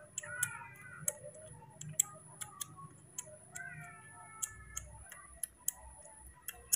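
Irregular wet clicks and smacks, a few each second, as two baby macaques suck milk from plastic bottles. Twice a short, faint high chirping call sounds under the clicks.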